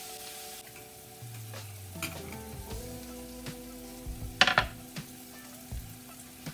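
Cornish hen pieces sizzling as they fry in a skillet, under soft background music with held chords. About four and a half seconds in, a wooden cutting board clatters down on the counter, with a few lighter knocks around it.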